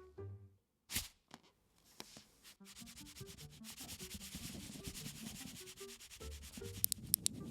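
Hand-made foley noise: a continuous scratchy rubbing starting about two and a half seconds in, with a single click about a second in and a few sharp clicks near the end, over soft low notes of background music.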